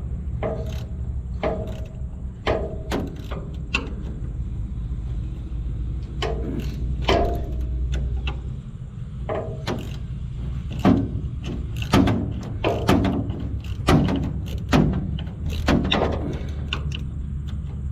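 Hand tools knocking and clinking on the combine's metal, a series of irregular sharp knocks, some with a brief ring, busiest in the second half, over a steady low rumble.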